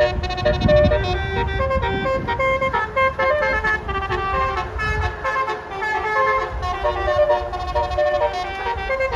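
Bus 'telolet basuri' horn, a multi-tone musical horn, playing a quick tune of short tooting notes that change pitch several times a second, over a low rumble.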